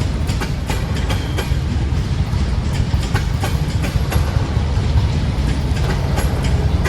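Freight train rolling past: a steady, heavy low rumble with frequent sharp clicks and knocks of the wheels over the rail joints.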